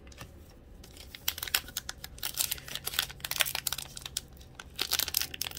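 Hockey trading cards being flipped and slid across one another in the hands: a quick, uneven run of papery clicks and rustles of card stock, busier from about a second in.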